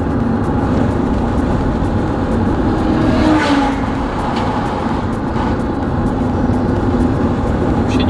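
Steady road noise of a car driving at highway speed, heard from inside: tyre and engine drone, with a brief rise in hiss a little over three seconds in.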